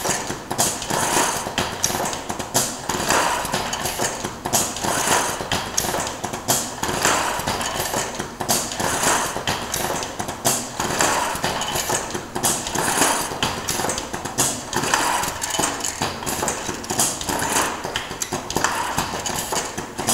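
Wooden ladder-making machine running: a continuous busy clatter of knocks and clicks as wooden rungs and metal parts work through it.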